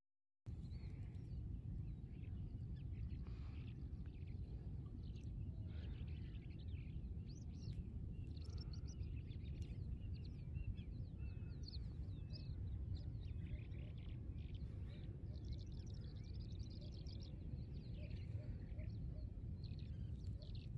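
Outdoor ambience: a low steady rumble with many birds chirping and calling throughout, in short rising and falling notes.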